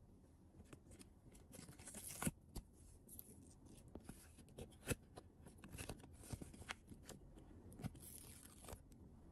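Quiet handling of toy packaging: short bursts of crinkling and tearing of wrapping, with scattered sharp clicks and taps.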